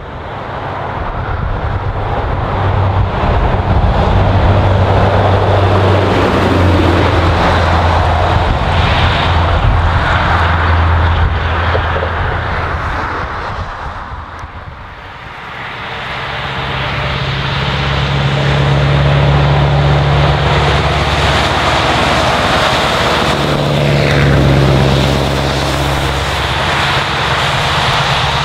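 Scania R164L 480 truck's 16-litre V8 on straight pipes, driving by under power with a deep, steady engine note. There are two passes with a dip between them about halfway, and the second carries tyre hiss from the wet road.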